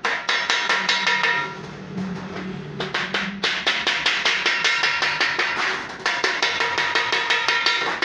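Wooden mallet hammering a thin galvanized steel sheet over a steel bar in rapid blows, several a second, each with a bright metallic ring. The hammering eases briefly about two seconds in and again about six seconds in.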